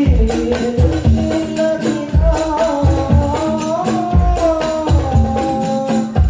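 Music led by a big beduk drum struck in a steady beat, about one deep stroke every three-quarters of a second, under a singing voice whose melody glides up and down, with light jingling percussion.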